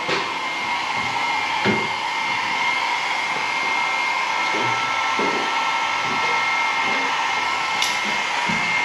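Steady whirring motor noise with a constant high whine, joined by a few light knocks.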